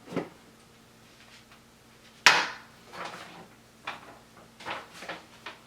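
A few scattered knocks and clatters of hard objects being handled, the loudest a sharp knock about two seconds in, with several smaller ones after it.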